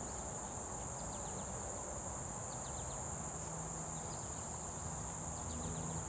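Steady high-pitched insect chorus of crickets, with a few scattered clusters of short, quick falling chirps above it and a low background rumble.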